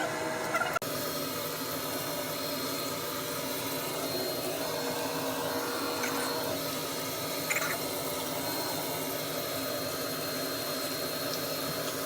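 Steady whooshing background noise with a faint, thin high-pitched whine over it.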